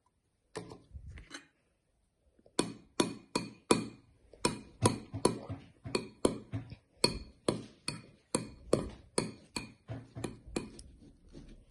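A spoon or stirrer mixing rubbery, thickening slime in a bowl, knocking against the side with a ringing clink about three times a second. It starts with a few soft knocks, and the steady knocking begins a couple of seconds in.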